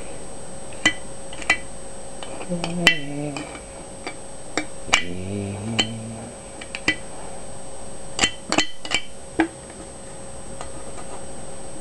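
An opened aluminium beer can being tapped and clicked as an improvised instrument: scattered sharp metallic taps, each with a brief bright ring, with a quick cluster of taps about eight seconds in. Two short, low hummed tones, each stepping downward in pitch, come about three and about five seconds in.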